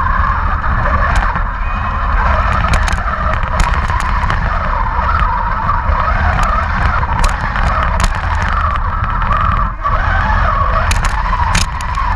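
Radio-controlled Panther tank model running and turning, heard from a camera mounted on its hull: a steady mechanical running noise over a low rumble, with scattered sharp clicks and a brief dip just before the end.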